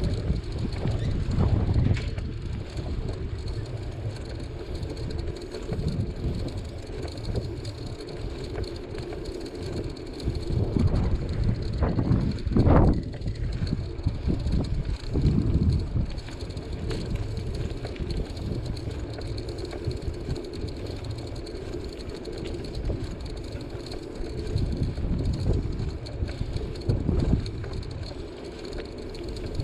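Bicycle riding along an asphalt street: a steady low rumble of tyres on the road and wind on the microphone, with a brief louder jolt about 13 seconds in.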